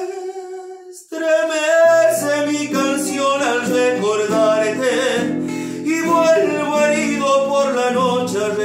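A man singing a Spanish-language ballad, accompanying himself on acoustic guitar. The sound drops away briefly about a second in, then the voice and guitar carry on.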